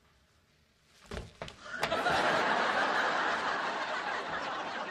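A few short thumps about a second in, then a sitcom studio audience laughing, rising quickly and holding loud to the end.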